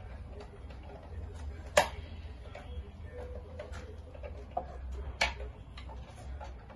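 Small clicks and taps of a screwdriver working the terminal screws of a DC circuit breaker, with two sharper clicks about two and five seconds in. A low steady hum runs underneath.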